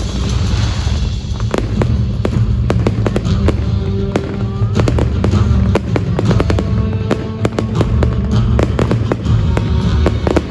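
Fireworks going off in quick crackling and popping strikes, thickest in the second half, over loud show music with heavy bass.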